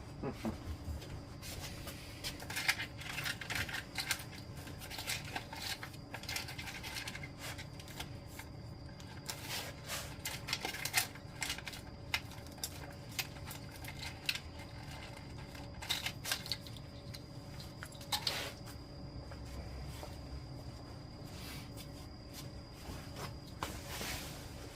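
Scattered small clicks, ticks and rustles of hands working on a motorcycle's wiring harness and small parts, over a faint steady hum.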